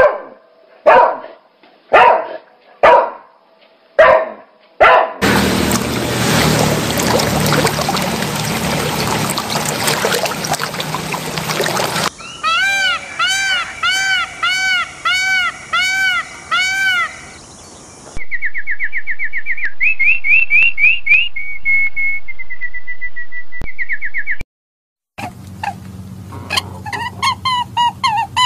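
A montage of animal sounds in quick succession. First about six dog barks, roughly one a second, then several seconds of loud rushing noise. After that come rows of short repeated bird chirps and a trilling bird song, and near the end a run of quick bird calls over a low hum.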